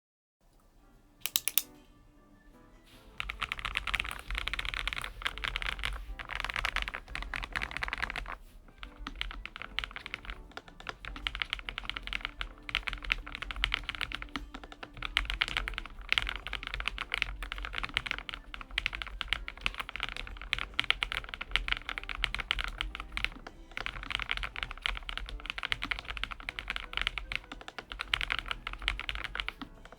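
Typing on a Lofree Flow Lite low-profile mechanical keyboard with full-POM switches: a fast, continuous run of keystrokes that starts about three seconds in, with brief pauses, over background music.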